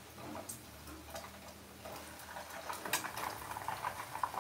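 Imitation crab sticks frying in a small saucepan of hot oil: scattered pops and crackles that grow busier about two seconds in.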